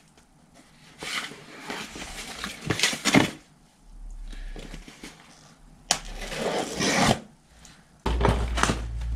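Cardboard parcel being opened by hand: rustling, scraping and tearing of tape and cardboard in several separate bursts. A steady low hum comes in near the end.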